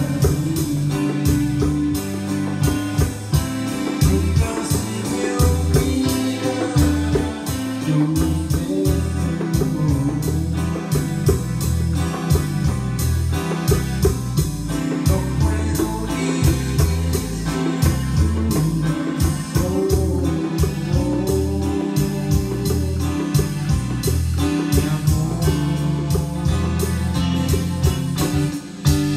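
Cumbia played live on an electronic keyboard with hand-played bongos, over a steady, repeating bass beat.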